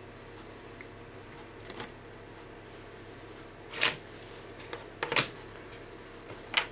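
Magnetic corner clamps and plastic model walls clicking sharply together as they are handled, three loud clicks spaced about a second and a half apart, over a faint steady hum.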